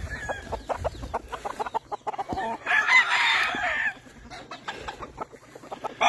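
A gamefowl rooster crows once, about a second and a half long, midway through, after a few short clucks.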